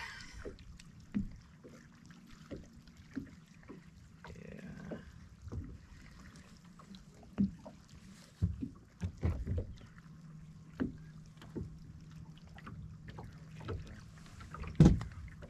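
Scattered small knocks and clicks against a bass boat's deck and fittings as a caught bass is handled, with a low steady hum for a few seconds near the end and one heavy thump just before it stops.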